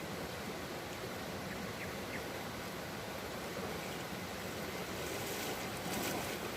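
Steady rushing of flowing river water, an even hiss with no distinct events, with a little light crackling near the end.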